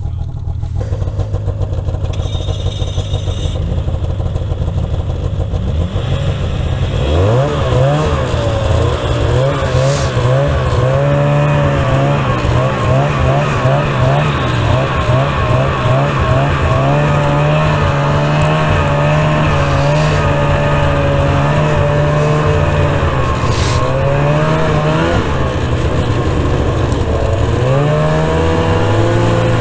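Snowmobile engine idling unevenly, then revving up about seven seconds in as the sled pulls away. It then runs at speed, its pitch rising and falling with the throttle.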